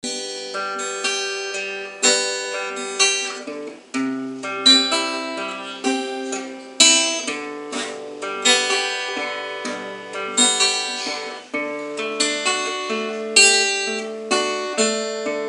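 Instrumental introduction on acoustic guitar: plucked notes and chords, each struck note ringing out and fading before the next.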